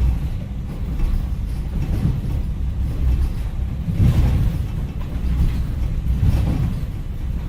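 A steady low rumble that swells and fades a few times, from an added sound-effect track.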